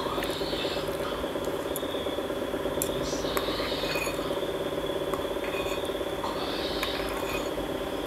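A metal spoon scraping and clicking against a porcelain bowl, a few light clinks scattered through, over a steady background hum with a high whine in it.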